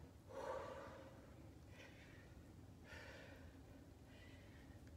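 Faint, hard breathing of a woman exercising with a dumbbell: four soft exhales, about one a second, the first with a slight voiced sound.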